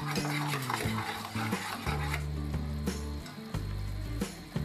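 A spatula stirring and scraping around a steel pot of boiling sugar syrup, the bubbling syrup sizzling: sugar and ghee being cooked down into caramel, stirred constantly so it does not burn.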